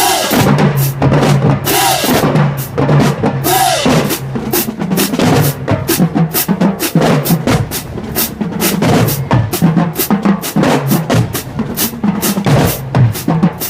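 Marching band drumline playing a fast cadence on snare, tenor and bass drums, with a steady stream of rapid strikes.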